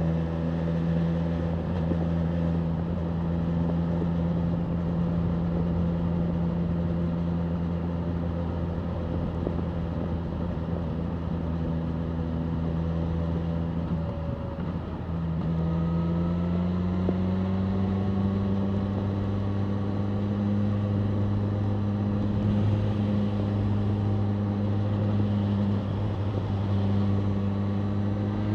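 BMW M1000R Competition's inline-four engine running at steady cruising revs under wind noise. About halfway through, the revs dip briefly, then climb slowly and hold at a slightly higher pitch.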